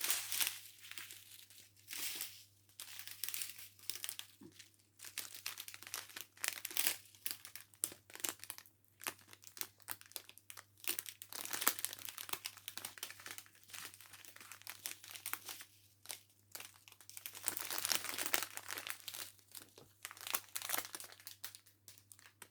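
Small plastic packets of diamond painting drills being handled and sorted, crinkling and rustling on and off.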